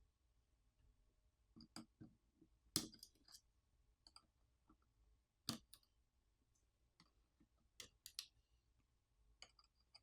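Faint, scattered clicks and taps of tools and small parts being handled while a tablet is taken apart, with the sharpest ones about three and five and a half seconds in.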